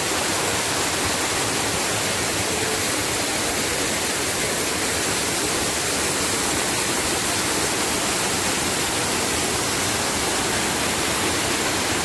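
Steady rushing of water falling from a small waterfall beside the trail, an even, unbroken roar.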